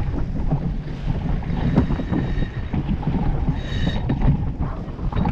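Wind buffeting the microphone over the rush of water in the wake of a McConaghy/Mills 41 racing sailboat under sail, with a brief high-pitched whine about three and a half seconds in.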